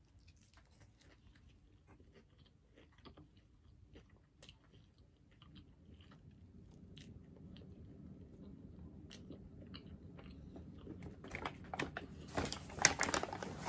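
Close-miked chewing of a Popeyes classic fried chicken sandwich: soft mouth clicks and crunches. Near the end comes a louder burst of paper rustling.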